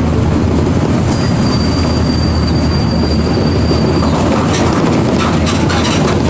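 Interior running noise of a Marcopolo Torino bus on a Mercedes-Benz OF-1722M chassis: the engine drones low and steady under road and body rattle. About a second in, a thin, high, steady squeal starts and holds for about three seconds before stopping.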